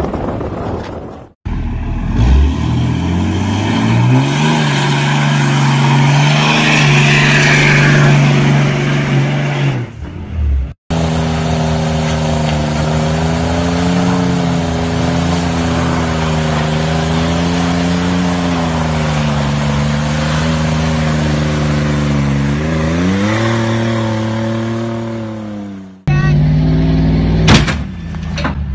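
Diesel pickup truck engines running at high revs under load across several short cuts, with wheel spin; the longest stretch is one engine holding high revs, its pitch wavering and then climbing near the end. A sharp crack comes near the end.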